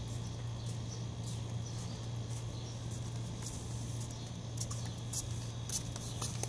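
Long-handled broom sweeping a concrete floor in short, irregular scratchy strokes, with flip-flop footsteps, over a steady low hum.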